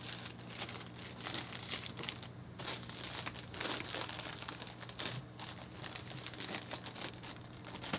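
Plastic fish bags crinkling irregularly as a water-filled bag is handled and its top twisted closed.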